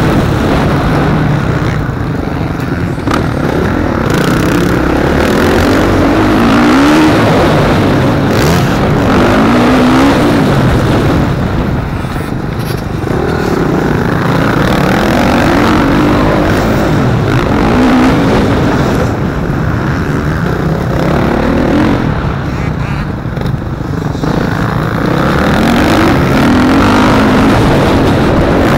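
Dirt bike engine heard close up from on board, revving up and dropping back again and again as the bike is ridden hard round a motocross track.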